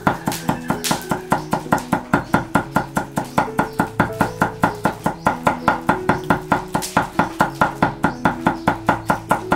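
Kitchen knife chopping wood ear mushrooms on a thick wooden chopping board: a fast, even run of blade strikes on the wood, about five a second.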